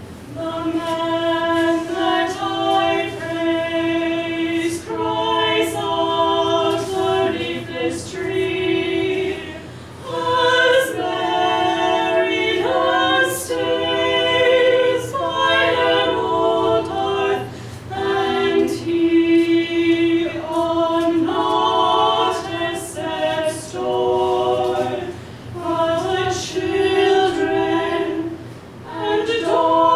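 A small group of voices singing together in harmony, with one low note held steady beneath the moving upper parts, in phrases that break off every several seconds.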